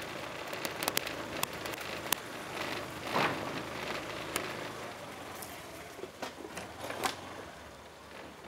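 Outdoor ambience of scattered sharp clicks and knocks over a steady hiss, with a louder rush of noise about three seconds in and another knock-like burst just after seven seconds.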